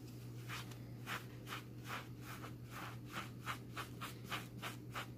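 A sponge soaked in leather dressing, held in a gloved hand, rubbed back and forth over a leather keychain blank. It makes soft, even scrubbing strokes, about three a second, starting about half a second in.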